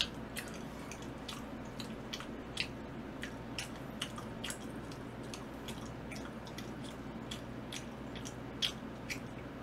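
A man biting into and chewing a slice of pizza close to the microphone: irregular short, wet clicks and smacks of the mouth, several a second.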